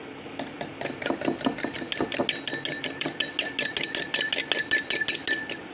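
Metal fork whisking a raw egg in a cut-glass bowl: quick, steady clinks of the tines against the glass, about five or six a second, with a ringing note from the bowl. The beating starts just after the opening and stops shortly before the end.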